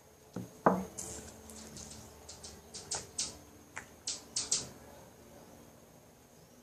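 Handling noises of slime-making utensils and plastic containers on a table: a sharp knock under a second in, the loudest sound, then a quick string of light clicks and taps over the next few seconds.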